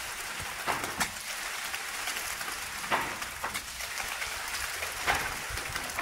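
Wet concrete discharging from a pump's delivery pipe and running down a steel chute: a steady wet hiss with short, sharp splats at uneven intervals as slugs of concrete drop onto the chute.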